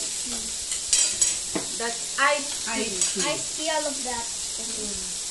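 Pork belly and bacon sizzling on a tabletop grill, a steady hiss throughout, with a few sharp clicks of chopsticks and utensils on dishes about a second in.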